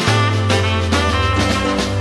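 Upbeat instrumental background music with a bass line and a steady beat.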